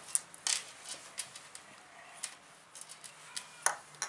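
Irregular light taps and clicks of hands and a small plastic roller working a lump of Play-Doh against a wooden tabletop. The sharpest knocks come about half a second in and again near the end.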